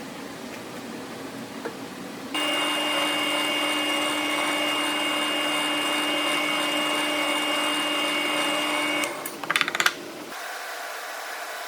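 Electric sander switched on and running at a steady speed for about seven seconds, then stopping, with a brief rattle near the end.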